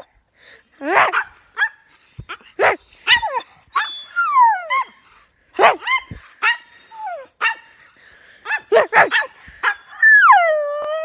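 Pet dog making a string of whining, yowling calls, many sliding down in pitch, mixed with short sharp barks, ending in one long falling howl-like whine.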